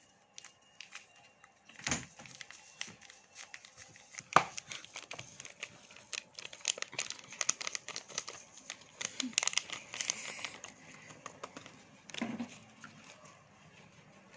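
Plastic toy packaging being crinkled and torn open by hand, with a couple of sharper knocks about 2 and 4 seconds in and the densest crinkling in the middle.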